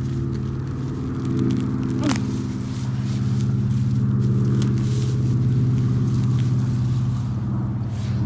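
A low, steady engine drone, with light rustling and a few small clicks over it.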